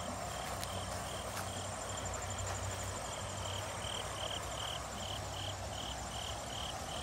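A shallow creek trickling over rocks, with an insect chirping in a steady rhythm, about two to three chirps a second.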